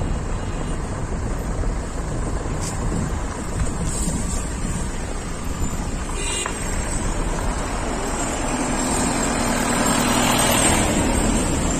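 Steady rumble of a road vehicle running, with a hiss that swells about nine seconds in and fades near the end.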